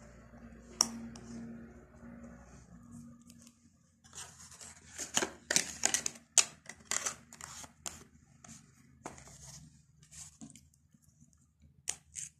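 A small cardboard box being handled and opened by hand. There is a sharp click about a second in, a run of scraping, tearing and crinkling strokes from about four to eight seconds in, and a couple of clicks near the end.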